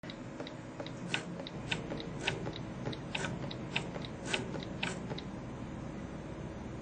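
Electric voice coil actuator stylus tapping keys on an iPhone's touchscreen keyboard: a run of short, sharp ticks, about three a second, that stops a little after five seconds. A faint steady hum runs underneath.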